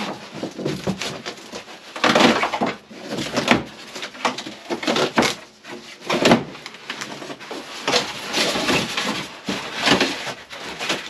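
Cardboard packaging and plastic wrap being handled and pulled away while unpacking a bandsaw: irregular bursts of rustling, crinkling and scraping.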